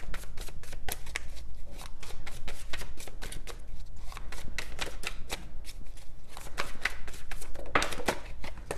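A deck of tarot cards being shuffled by hand: a quick, continuous run of soft papery card flicks and slaps, thinning briefly a couple of times.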